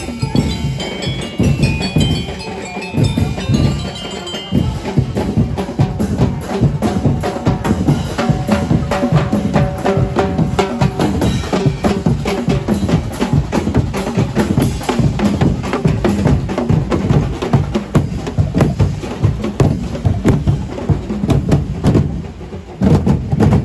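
Festival street-dance drum and percussion band playing a dense, driving beat on drums and wooden percussion. A bell-like melody plays over it for the first few seconds.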